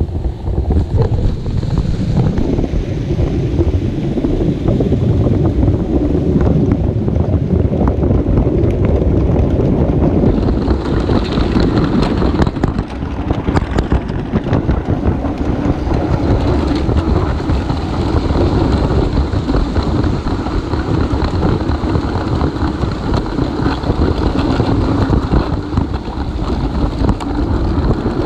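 LEGO train wagon rolling along plastic LEGO track with a steady, loud rumble and rattle of its wheels and motor, picked up by a camera riding on the train itself.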